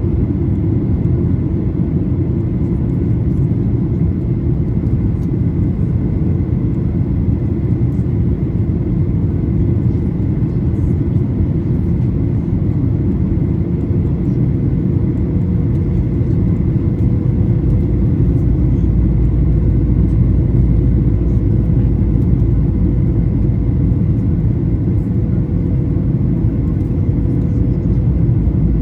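Boeing 737-800 cabin noise: a steady deep rumble of its CFM56-7B engines and the airflow, with a faint steady whine above it. The low rumble deepens a little about two-thirds of the way through.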